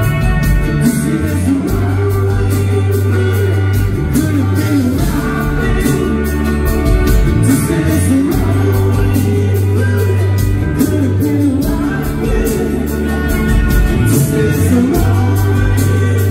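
A rock band playing live and loud: a male singer over acoustic and electric guitars, with drums keeping a steady beat.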